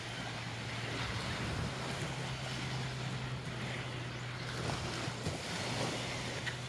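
Small waves washing on the sand with wind on the microphone, over a steady low hum.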